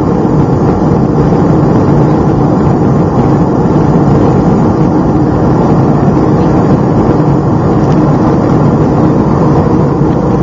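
Steady cabin noise of a Boeing 757 in flight: an even, low rumble of jet engines and rushing air, with no change throughout.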